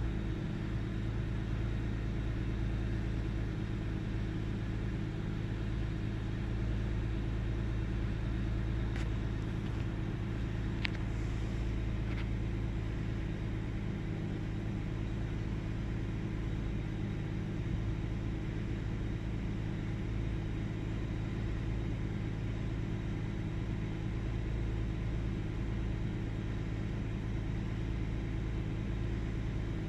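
1998 Ford Taurus 3.0 L OHV V6 idling steadily, with a few faint clicks around the middle; the owner reports the idle as intermittently rough, with sputters and misses of unknown cause.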